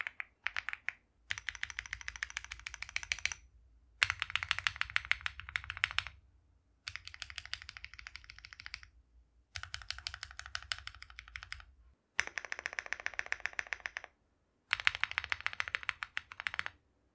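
Fast typing on a Meletrix Zoom75 mechanical keyboard fitted with stock KTT Waverider switches. There are several runs of rapid keystrokes, each about two seconds long, separated by brief silent breaks.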